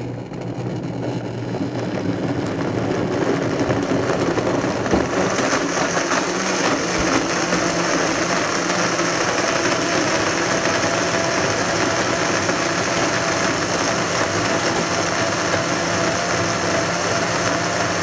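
High-powered countertop blender running at full speed, blending a thick mix of soy milk, peanut butter and dates. It is uneven for the first few seconds, then settles into a steady whirr as the mix turns smooth.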